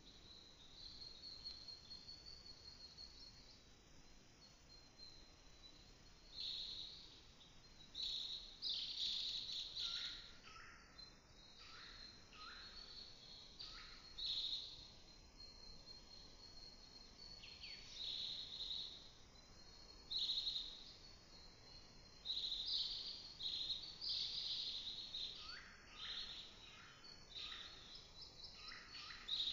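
Small songbirds chirping in a forest: quick high chirps come in clusters, with some notes sliding quickly downward, and a faint thin high tone underneath at the start.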